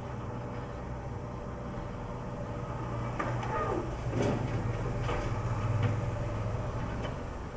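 Diesel engine of a JCB digging machine running steadily. From about three seconds in come a few knocks and scrapes, and the sound is loudest near six seconds.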